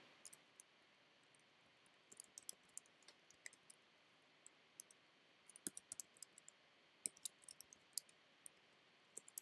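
Faint, irregular clicks of computer keyboard keys being typed in short runs with pauses between.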